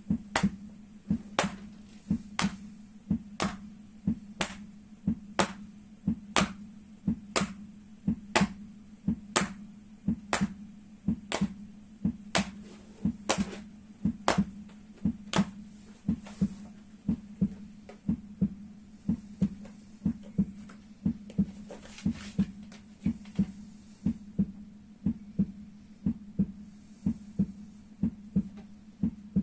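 Heartbeat sound, a steady lub-dub about once a second over a low hum. Through the first half come sharp slaps in time with it, hands striking the soles of the feet to the heart's rhythm; the slaps fade out about halfway through.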